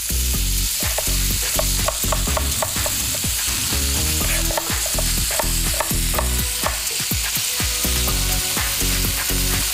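Pieces of smoked roast pork sizzling in olive oil in a frying pan over high heat, with irregular clicks and taps from stirring and knife work on a board.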